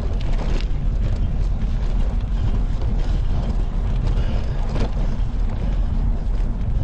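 Steady low rumble of a bicycle in motion: wind buffeting the handlebar-mounted camera's microphone and tyres rolling over a cracked concrete path. A couple of faint knocks come about half a second in and near five seconds.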